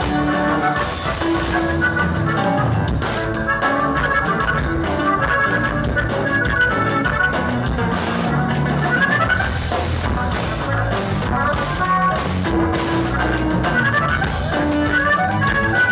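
Live norteño band playing an instrumental passage: a button accordion plays fast melodic runs over strummed guitar and a drum kit.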